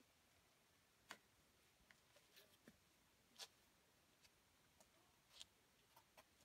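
Near silence broken by about ten faint, scattered clicks and taps at irregular spacing, the clearest about a second in, in the middle, and near the end.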